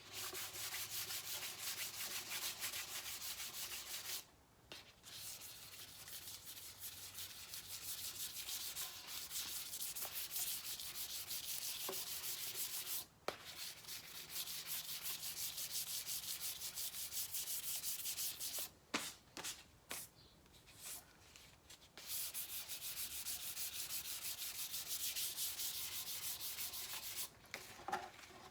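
Fine 600-grit sandpaper rubbed by hand over the clear coat of painted motorcycle panels in quick back-and-forth strokes, cutting back orange peel. It stops briefly a few times, with a longer pause past the middle.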